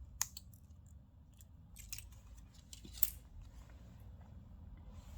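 Small sharp clicks and taps of a repair tool working inside an opened smartphone as its flex-cable connectors are prised off, with a louder snap about a quarter second in and another about three seconds in.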